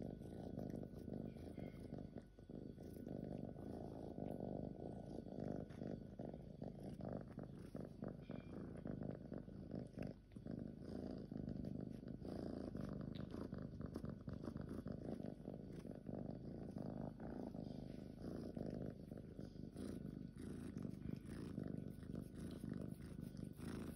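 Norwegian Forest Cat kitten purring steadily and continuously.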